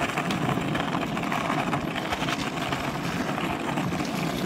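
Wheels rolling fast over a concrete sidewalk: a steady, gritty rumble, with faint clicks from the pavement joints, picked up by a camera carried by the rider.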